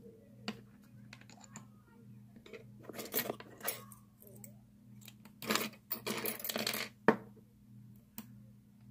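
Small metal clicks and clinks of brass lock pins and tweezers being handled while key pins are loaded back into a pin-tumbler lock cylinder, coming in scattered clusters, with one sharp click about seven seconds in.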